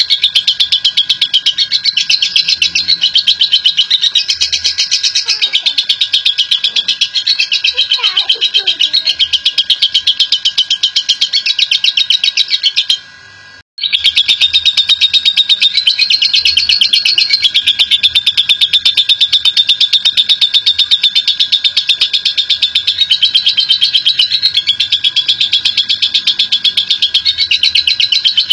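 Lovebird giving a long 'ngekek': a continuous, very rapid high-pitched chattering trill of fast-repeated notes, broken once briefly about halfway through.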